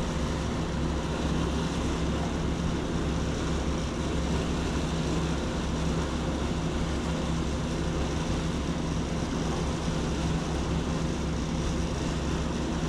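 A steady low mechanical drone with a constant hum, not rising or falling.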